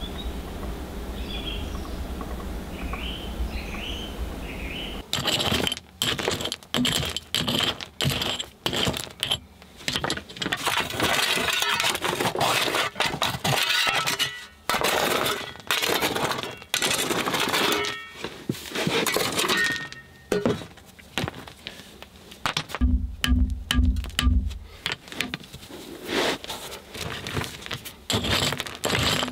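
Birds chirping for about five seconds. Then an axe chops and scrapes again and again into stony soil, with loose stones clattering and clinking.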